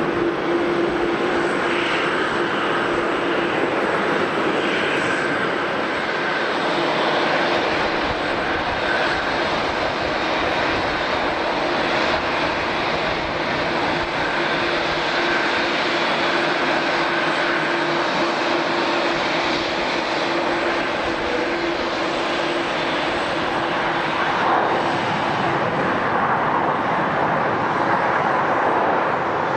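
Jet airliner engines running, a steady, even noise with a constant low hum and a fainter whine above it.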